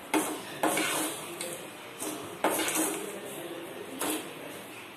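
Metal spoon stirring salt in a steel kadai: the salt grains scrape, and the spoon clanks against the pan's sides about half a dozen times. The salt is being heated in the dry pan as the frying medium for papad.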